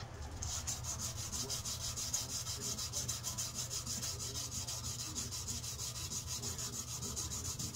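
Hand sanding a wooden knife handle: sandpaper rubbed over the wood in quick, even back-and-forth strokes, several a second.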